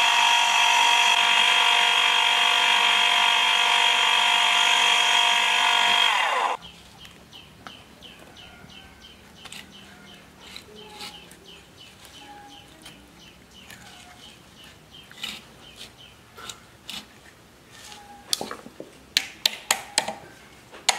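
Small electric motor running with a loud steady whine, cut off sharply about six and a half seconds in, its pitch dropping as it stops. Then light metallic clinks of hand tools on the motor, with a quick series of sharp taps near the end.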